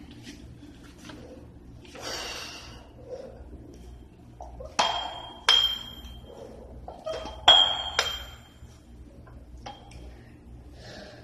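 Metal dumbbell plates on threaded bars clinking as they are lifted: about four sharp clinks in two pairs, each with a short metallic ring.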